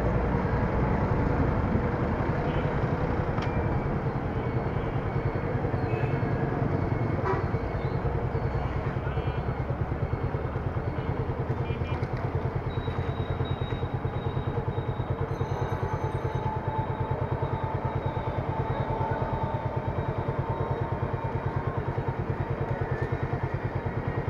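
Suzuki Gixxer SF's single-cylinder engine running as the bike rolls slowly, then idling with a steady, even pulse from about eight seconds in.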